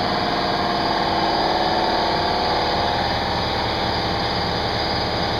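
Air compressor running steadily, a constant motor hum with no let-up.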